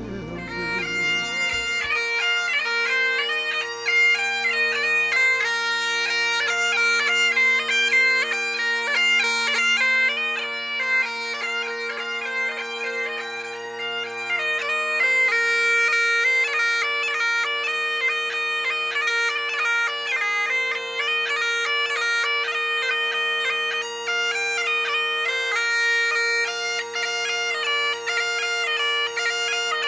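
Bagpipes playing a tune: steady drones held under a fast-moving chanter melody that changes note many times a second.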